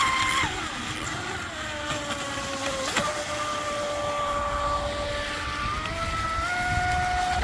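RC speedboat's brushless electric motor whining at speed. The pitch drops about half a second in, holds steady, then climbs again near the end, with one sharp click about three seconds in.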